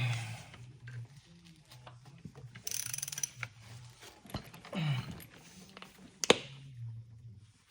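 Hand tools working on a brake caliper during disassembly: a short burst of ratchet clicking about three seconds in, scattered knocks, and one sharp metal click a little after six seconds.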